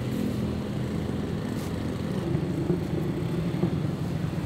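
A motor vehicle engine running steadily at idle, heard as a low, even hum, over general street traffic noise.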